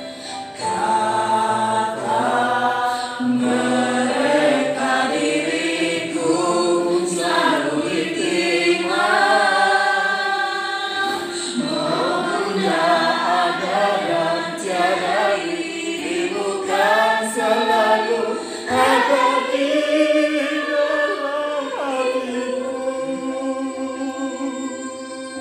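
A group of voices singing a slow song together, with long held notes.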